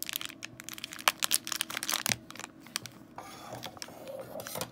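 Thin plastic blind-bag pouch crinkling and crackling in irregular bursts as fingers squeeze and handle it.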